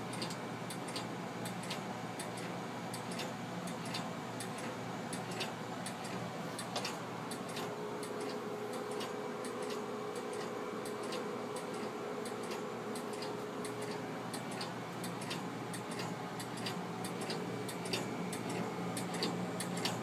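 Repeated ticking clicks over a steady hum, with a faint steady tone joining in for several seconds midway.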